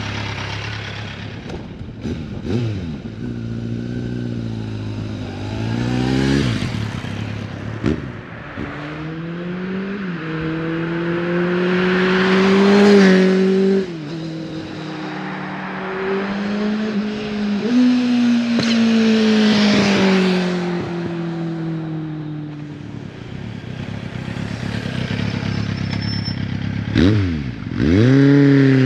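Kawasaki Z750's inline-four engine, fitted with an aftermarket exhaust, accelerating and revving through the gears. The pitch climbs and drops back at each shift, and near the end the revs dip sharply and rise again as the bike comes past close by.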